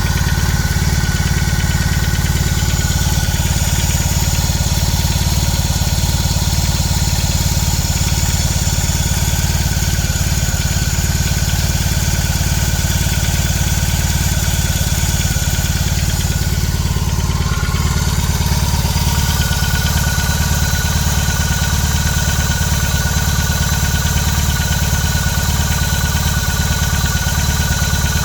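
BMW R18 Classic's large boxer twin engine idling steadily after a cold start, with a slight change in its higher tones about 18 seconds in.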